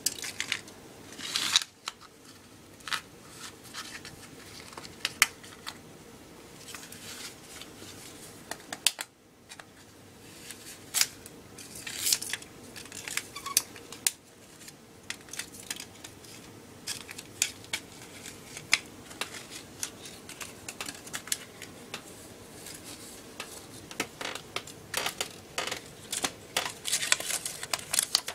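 A coffee-cup lid clicking, tapping and scraping on a vinyl tile floor as a cat bats at it: irregular light clicks, coming more thickly near the end.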